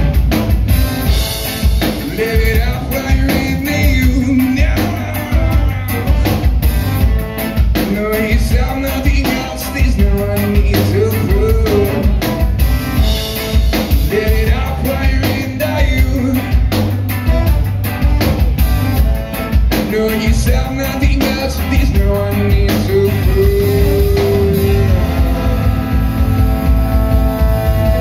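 Live rock band playing: drum kit, electric guitar, electric bass and trombone, amplified on stage, with a steady drum beat throughout.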